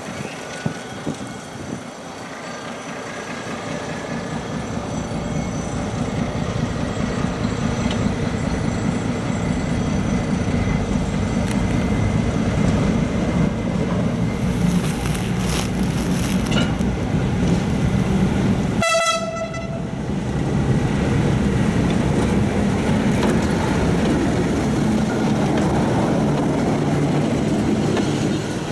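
BB 63000-class diesel shunting locomotive running as it draws closer, its engine growing steadily louder. About two-thirds of the way through comes one short horn toot, and after it the cars' wheels rumble and clatter close by on the rails.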